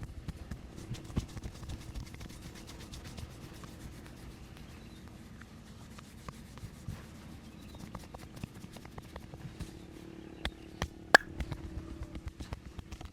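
Hands massaging a person: rubbing on skin and hair with a run of quick light taps and clicks, over a steady low hum. One sharp, loud crack about eleven seconds in.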